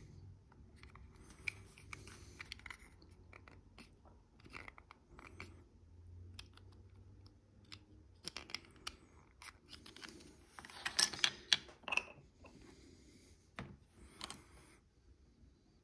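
Small plastic model-kit parts handled and fitted together by hand: scattered light clicks, taps and scrapes of plastic on plastic and on the cutting mat, with a denser run of clatter about eleven seconds in.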